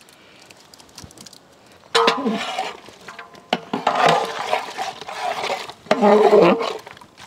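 Mutton being stirred in hot oil in a metal pot, with a metal spoon or ladle scraping and clinking against the pot. The scraping starts about two seconds in and comes in uneven stretches, loudest around six seconds.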